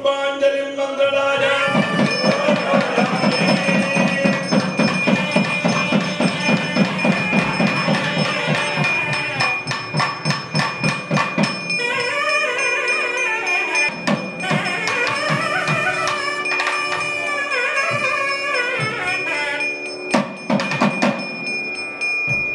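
Traditional South Indian temple music: fast, even drumming for the first half with melodic lines coming in the second half, over a steady high bell-like ringing tone.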